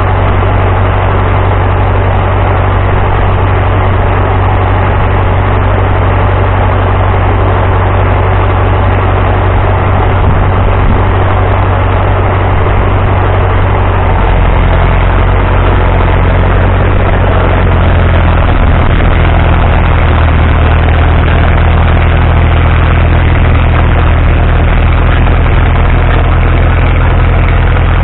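Cat D4C crawler bulldozer's diesel engine running steadily with a deep note. The note changes pitch about halfway through as the dozer works.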